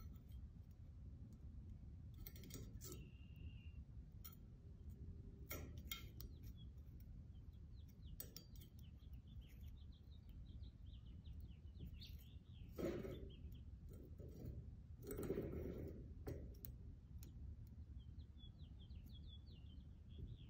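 Palette knife working thick acrylic paint over a metal saw blade: scattered light clicks and taps, with two brief louder scrapes about 13 and 15 seconds in. Faint bird chirps and a low steady rumble sit underneath.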